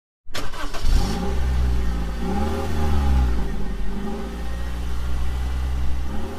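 Engine revving as an intro sound effect: a deep steady rumble with the pitch swelling up and falling back a few times, starting suddenly just after the start.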